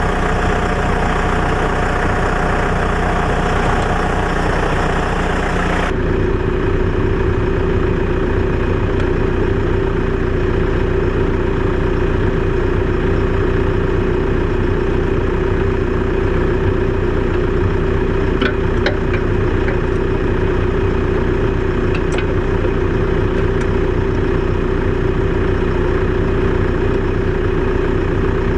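Tractor engine running steadily, driving a Woodland Mills TF810 PTO wood chipper. About six seconds in the upper hiss cuts out abruptly, leaving a steady hum with one held tone, and a few faint clicks come later.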